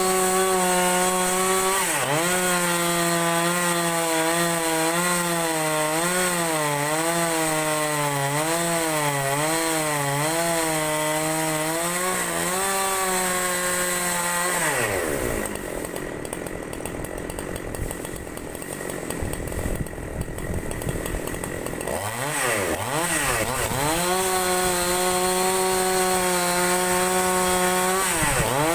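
Two-stroke chainsaw ripping a large log lengthwise, its engine note wavering under load as it cuts. About halfway through the throttle comes off and the engine drops to a quieter idle for several seconds. Then it revs back up into the cut, with a brief dip near the end.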